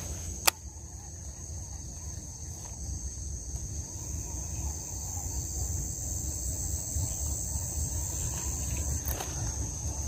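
Steady high-pitched drone of insects, with a low rumble of wind on the microphone throughout. A single sharp click sounds about half a second in.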